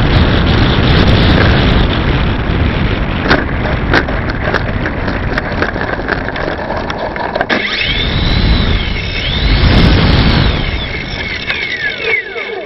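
RC tow plane rolling over grass, heard from its onboard camera: a loud rumble of wheels and wind with a couple of knocks about three and four seconds in. Then it goes quieter and a whine rises and falls in pitch several times, the Scorpion 4226 electric motor being throttled up and down.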